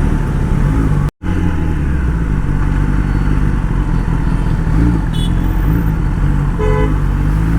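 Kawasaki ZX-10R's inline-four engine running steadily while being ridden, with road and wind noise. It cuts out completely for an instant about a second in.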